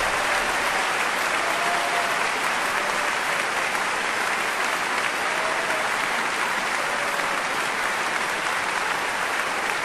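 Large concert-hall audience applauding steadily.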